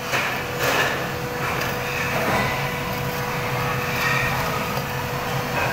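Steel ladle scraping and knocking irregularly against the inside of a crucible as molten aluminium is scooped out, over a steady mechanical hum with a constant mid-pitched tone.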